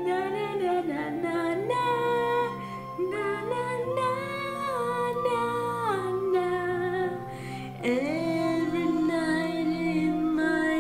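A woman singing a slow, wordless melody over soft, low accompaniment. She holds long notes and slides from one to the next, with two short breaks between phrases.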